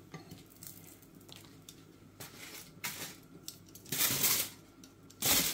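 A few light clicks of metal tongs against a nonstick frying pan as the cooked paratha is lifted out, then aluminium foil crinkling in two loud bursts, about four seconds in and again near the end, as it is folded over the paratha.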